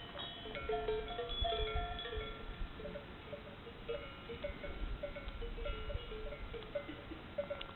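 Many cowbells on a herd of cows clanking irregularly and overlapping, with short ringing, gong-like notes.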